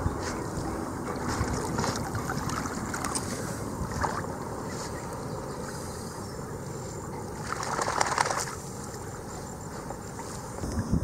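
Golden retrievers wading and swimming through a river: steady water sloshing, with a burst of splashing about eight seconds in, over wind rumbling on the microphone.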